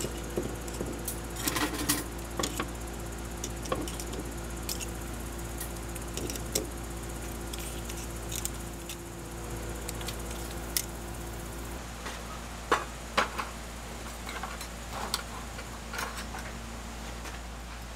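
Metal tongs tapping and clicking against a wooden cutting board, with scattered sharper knocks of metal tableware being handled. A steady low hum runs underneath and changes about two-thirds of the way in.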